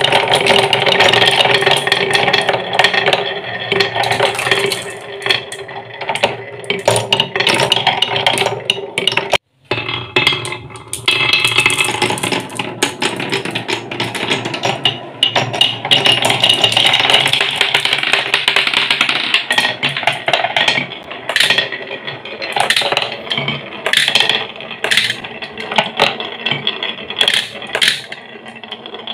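Glass marbles rolling along wooden marble-run tracks and round a wooden spiral, a continuous rolling rumble with a ringing tone. The sound cuts out briefly about a third of the way in. In the last part it breaks up into separate clicks and knocks as marbles drop and collide in a toy truck's bed.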